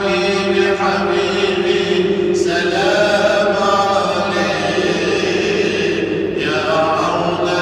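Voices chanting together in long, held devotional phrases, a new phrase starting about two and a half seconds in and again near the end: Islamic devotional chanting in a mosque.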